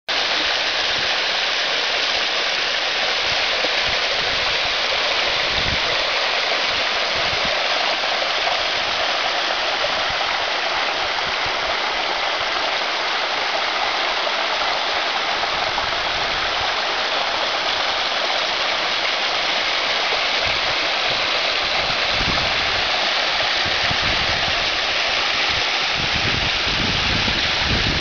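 Small waterfall: a steady, even rush of falling water.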